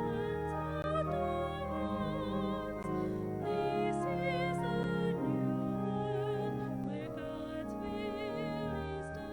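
Slow church music: long sustained chords changing every second or two, under a melody line with a wide vibrato.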